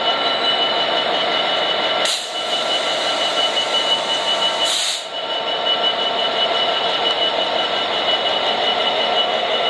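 A Class 66 diesel-electric freight locomotive, with its two-stroke V12 engine, running as it passes slowly close by. It gives a steady drone with a steady high-pitched tone. Two short hisses come about two seconds and five seconds in.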